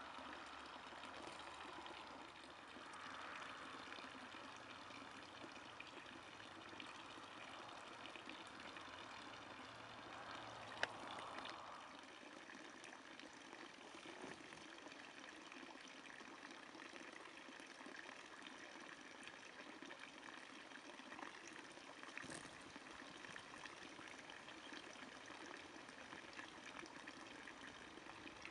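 Thin stream of water falling steadily into a concrete trough: a faint, continuous trickle and splash. A single sharp click about eleven seconds in.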